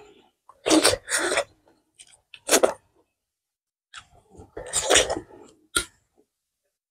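Close-miked sounds of a person eating with their fingers: several short, loud slurps and smacks of lips and fingers, with a quiet gap near the middle.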